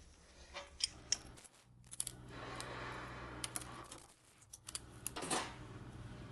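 Hand-tool work on an engine: light metallic clicks and taps as tools and small parts are handled, with a rasping stretch of a second or two in the middle.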